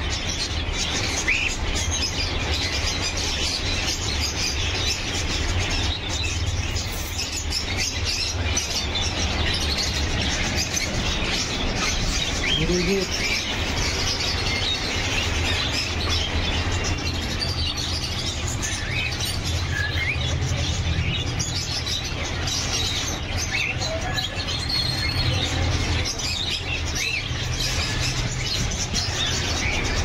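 Many caged small birds chirping together in a constant, dense din of overlapping chirps, over a steady low hum.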